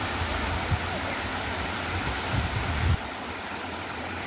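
Waterfall spilling down a rock cliff face, a steady rush of falling water, with low rumbling bumps that stop abruptly about three seconds in.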